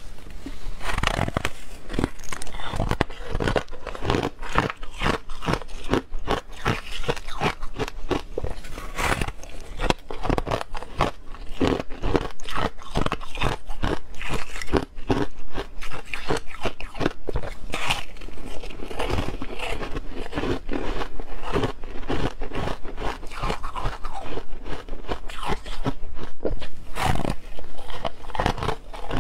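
Soft freezer frost being bitten and chewed close to the microphone: a dense, continuous run of crisp, crackly crunches.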